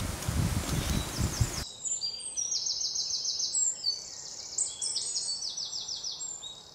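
Firewood being stoked in an open fire under a large cooking pot: a noisy rumble with low knocks for about a second and a half. It then cuts off abruptly to birds chirping in quick, repeated high trills.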